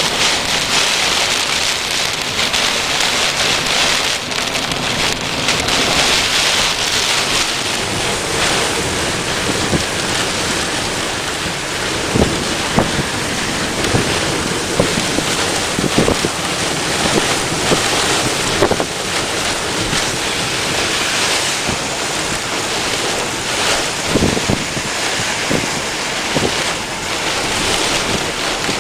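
Heavy rain falling steadily, with wind buffeting the microphone. A few sharp knocks come in the second half.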